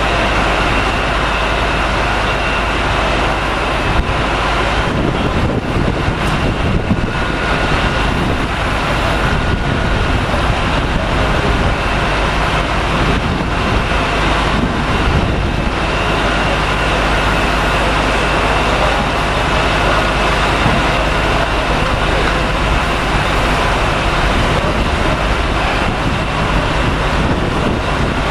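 Steady, loud drone of a car ferry's machinery: a low rumble with a few constant whining tones above it, unchanging throughout.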